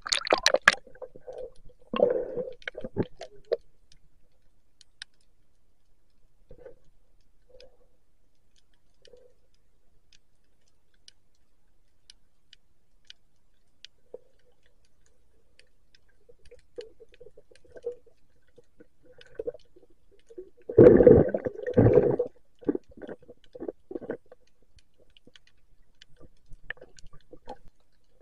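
Muffled underwater sound picked up through an action camera's waterproof housing: a splash as the camera goes under the surface at the start, then gurgling water movement and scattered faint clicks. A louder cluster of knocks and water rushing comes about 21 seconds in.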